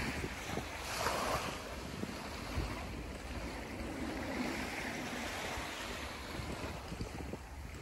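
Small waves washing onto a sandy beach, rising and falling every second or two, with wind rumbling on the microphone.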